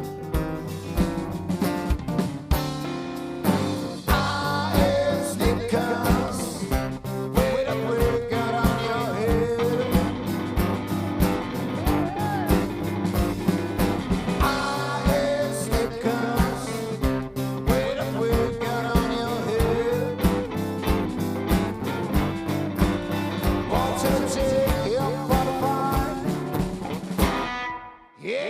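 Trio playing blues-tinged rock and roll: an instrumental break with a lead line of bent notes over bass and a steady drum beat. The band stops abruptly about a second before the end.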